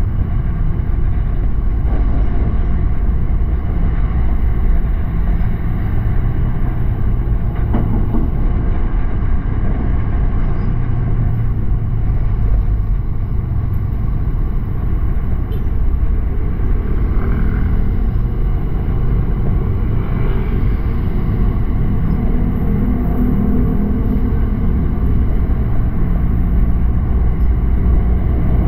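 Honda Click 125i scooter on the move: its single-cylinder engine running steadily under a constant rush of low road and wind noise.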